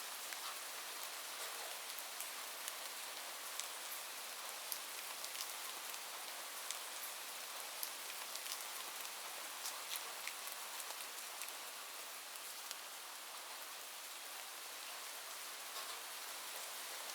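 Light, gentle rain falling steadily, a soft even hiss with scattered sharp ticks of individual drops.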